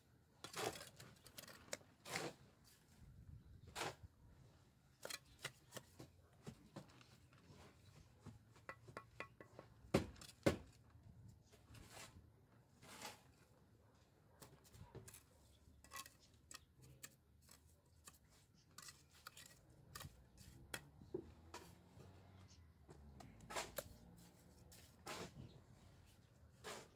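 Irregular clicks, taps and knocks of hand masonry work on a mortared stone foundation, with two louder knocks about ten seconds in.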